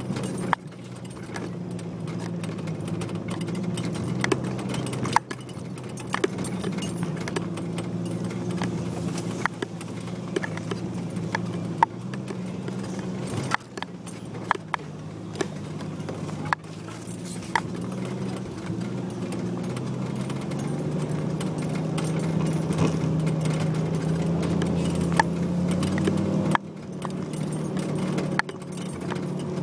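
Off-road vehicle engine running while driving over a rough dirt trail, with sharp knocks and rattles scattered throughout from jolting over bumps. The engine pitch climbs gradually about twenty seconds in, then drops off suddenly near the end.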